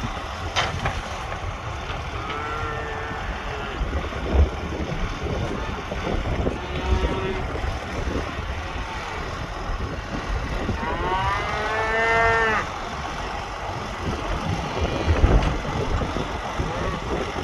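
Cattle mooing: a short call about two seconds in, a brief one near seven seconds, and a longer, louder call that rises and falls in pitch around eleven to twelve seconds, over low rumbling and a few thumps.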